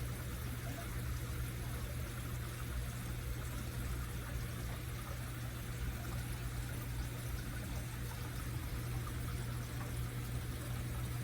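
Steady low hum with an even hiss underneath and no distinct events: constant background noise.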